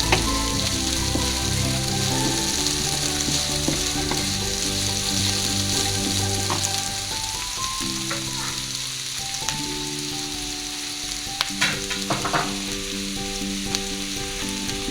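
Sliced aromatics (shallot, garlic, lemongrass, kaffir lime leaves and leek) sizzling steadily in hot cooking oil while being stirred, with a few quick spatula clicks against the pan a little past the middle. Soft background music with held, stepping notes runs underneath.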